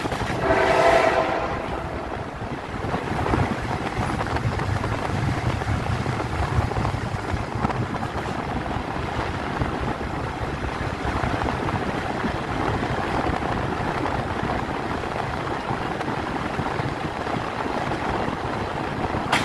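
A train horn sounds for about the first second and a half, then the steady rumble of the train running along the track, heard from on board, with occasional wheel clicks.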